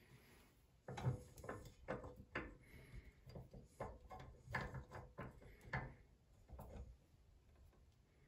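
Adjustable spanner being handled and fitted onto a basin tap's top: a run of faint, irregular clicks and knocks, with a few more near the end.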